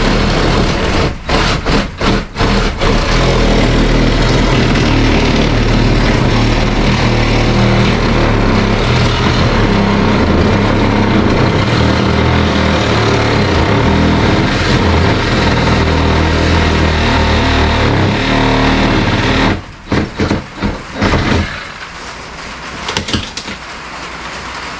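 Cordless DeWalt reciprocating saw cutting through wood framing, loud and rough. It starts and stops a few times at first, runs steadily for about fifteen seconds, then ends in a few short bursts, and is quieter near the end.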